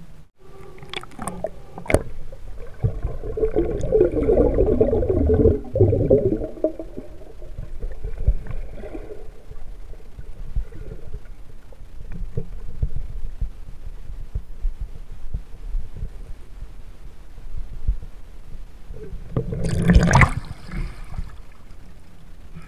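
Shallow river water splashing and gurgling as a hand sweeps through it close to the microphone, with a few sharp knocks at the start, a busy stretch of splashing a few seconds in, and another loud splash near the end.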